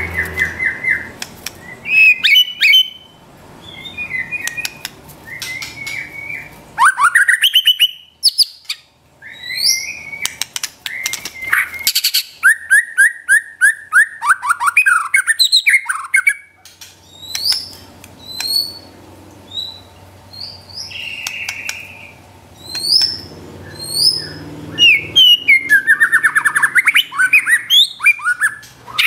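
White-rumped shama singing a loud, varied song of whistled notes, chips and glides, broken by fast stuttering runs of rapidly repeated notes (the 'trotol' style), with brief pauses between phrases.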